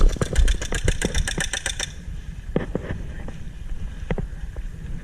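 Airsoft rifle firing a full-auto burst: a fast, even run of sharp shots, about ten a second, that stops about two seconds in. A few scattered knocks follow.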